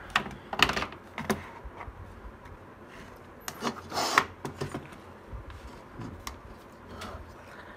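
Handling noise on a workbench: an amplifier circuit board with an aluminium heatsink being shifted and set down, and a multimeter with its test leads placed beside it, giving a scattering of sharp knocks, clicks and rubbing scrapes.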